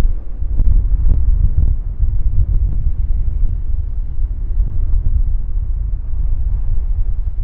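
Grob G120TP's Rolls-Royce 250 turboprop and propeller heard from the ground as the aircraft climbs away, a steady low rumble mixed with gusty wind on the microphone.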